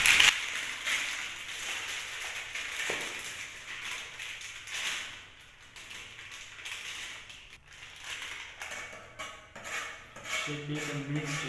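Crinkling and rustling of a plastic flour packet being worked open by hand, with small irregular crackles. Near the end the flour is tipped from the packet.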